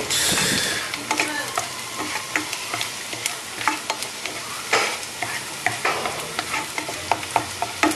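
Minced garlic sizzling in hot oil in a nonstick pan, stirred with a spatula that clicks and scrapes against the pan. There is a louder burst of sizzle right at the start. The garlic is only being fried until fragrant, not browned.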